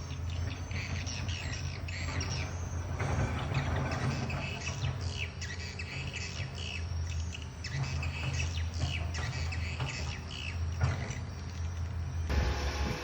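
Birds chirping and calling repeatedly over the steady low hum of an excavator's diesel engine. Near the end the chirps stop and the engine hum grows louder.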